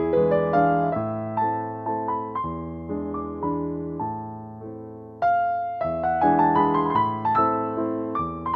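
Background piano music, a melody of struck notes that ring and fade one after another.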